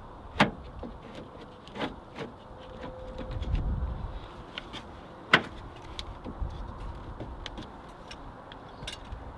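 Plastic inside door handle of a 2000 Toyota Camry being pushed into its clips in the door panel and handled: scattered clicks and knocks, with sharp clacks about half a second in and again a little past five seconds.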